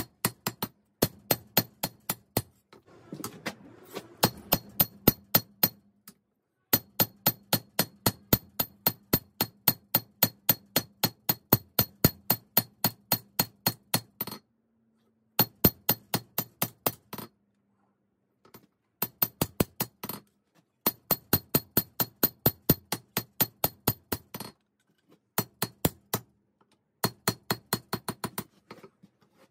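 Hammer blows on hot 5160 spring steel over an anvil, forging a blade: runs of quick, evenly spaced ringing strikes, about four a second, broken by short pauses.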